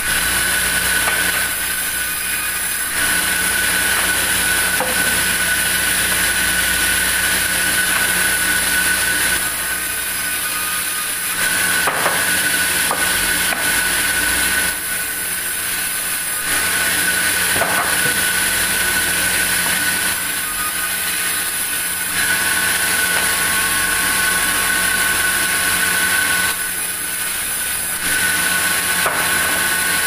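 Large vertical band saw running with a steady high whine while it rips through a wooden board. The noise swells during each cut and eases for a few seconds between cuts, several times over.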